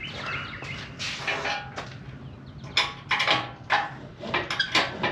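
Sharp metal clanks and knocks from tools working on an outboard motor's steering linkage, coming several at a time in the second half, over a low steady hum.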